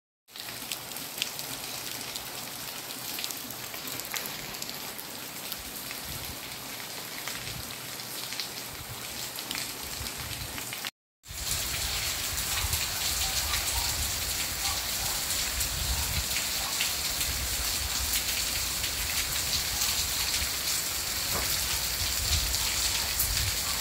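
Steady rain falling on the ground, an even hiss of drops throughout. It breaks off for a moment about eleven seconds in, then comes back louder.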